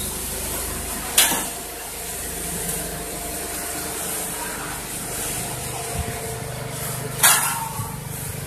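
High-speed multi-needle quilting machine line running with a steady mechanical hum and hiss, broken twice by a sharp, short burst of compressed-air hiss, about a second in and again near the end.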